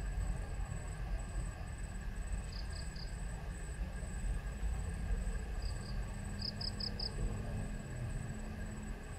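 Outdoor riverside ambience: insects keep up a steady high trill, with short high chirps in groups of two to four, about three seconds in and again near seven seconds, over a low steady rumble.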